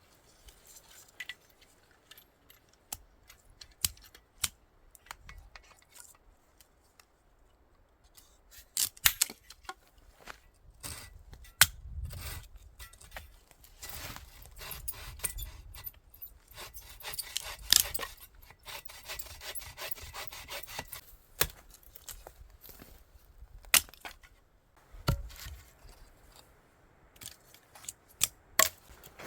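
Wood being cut by hand for firewood: a saw working in repeated strokes through the middle stretch, with scattered sharp snaps and knocks of sticks before and after.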